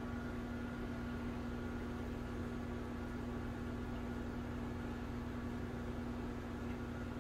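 Aquarium pump running: a steady electrical hum with an even hiss underneath, unchanging throughout.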